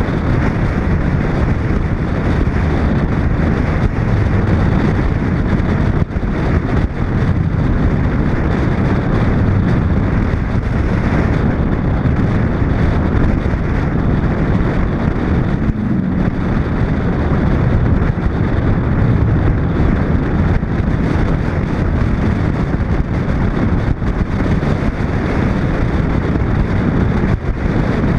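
Steady wind rush buffeting a camera mounted on the outside of a moving 1941 Chevrolet, with the car's running and road noise beneath it at cruising speed.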